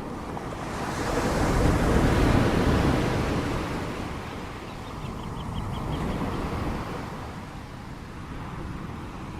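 Ocean surf: a wave breaks and washes in, swelling to its loudest about two seconds in and then fading, with a smaller swell around six seconds.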